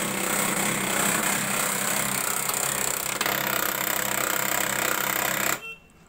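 HP 1005 laser printer powering up, its motor driving the gear train with a loud, steady, distorted mechanical noise that cuts off suddenly near the end. One gear turns while the lower gear behind it cannot: the drive is jammed by a coin lodged inside.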